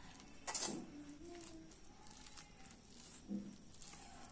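A steel spoon stirring thick besan batter in a stainless steel bowl: soft scraping and squelching as water is worked into the flour, with a louder knock of the spoon against the bowl about half a second in.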